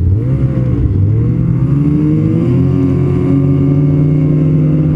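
Ski-Doo snowmobile engine running under way. Its pitch dips briefly near the start, then rises over about a second and a half as it speeds up, and holds steady.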